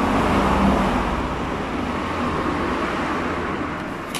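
Road traffic from a nearby highway: a passing vehicle whose noise swells in the first second and then slowly fades. A short click near the end.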